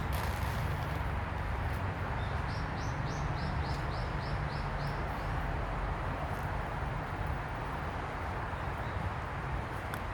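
A small bird calling a quick run of about nine short high notes, a few seconds in, over steady outdoor background noise with a low rumble.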